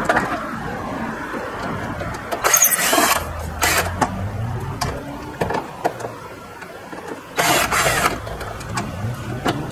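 Cordless drill-driver backing Phillips screws out of a scooter's plastic nose panel, running in two short bursts, about two and a half and seven and a half seconds in, with small clicks in between.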